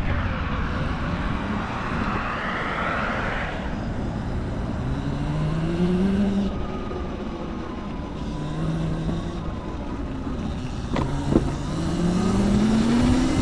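Electric motorcycle's motor whining as it rides, the whine rising in pitch several times as it speeds up, over a steady rush of wind and road noise; a sharp click about eleven seconds in.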